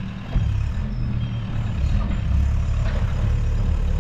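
An engine idling, a low steady rumble.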